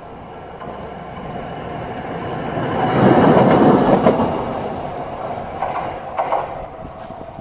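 Toden Arakawa Line 8500-type single-car tram passing over a level crossing with wheel clatter. It grows louder to a peak about three seconds in, then fades as it moves away.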